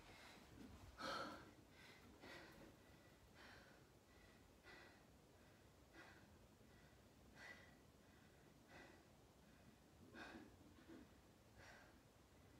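Faint, heavy breathing from a woman straining to hold a high plank, one breath a little over a second apart.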